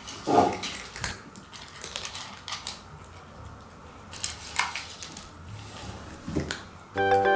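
Cats eating dry kibble from a plastic slow-feeder bowl: scattered crunches and clicks as kibble is chewed and knocked about in the bowl. Music starts near the end.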